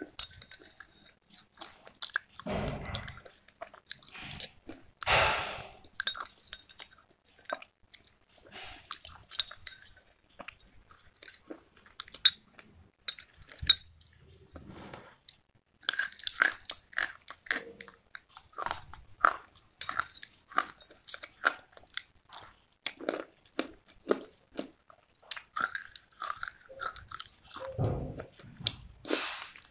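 Slate pencil sticks being bitten and chewed close to the microphone: a dense run of short, dry crunches and snaps.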